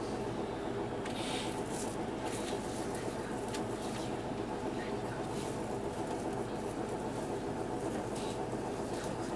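Diesel engine of a Hino Blue Ribbon II city bus idling, a steady hum heard from inside the cabin while the bus stands still. A few brief hissy sounds come at irregular moments.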